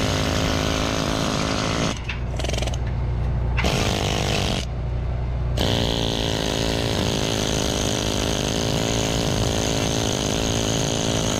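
Angle grinder with a wire cup brush scrubbing a steel seam, cutting out briefly twice about two and four and a half seconds in, over a steady low hum.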